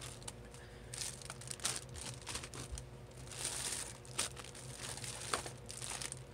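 Plastic shopping bag and cellophane packaging crinkling and rustling in irregular bursts as items are rummaged through, with a few sharper crackles.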